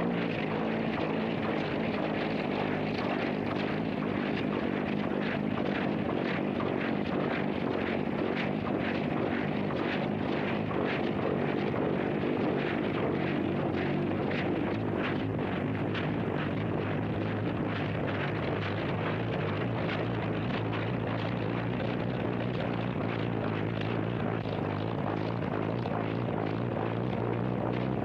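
The engine of a 1929 helicopter car running steadily, driving its large flat disc propeller, which spins and moves up and down, through a chain-driven jackshaft and transmission. It is a steady mechanical drone with a fast, even clatter, dull in tone as on an old film soundtrack.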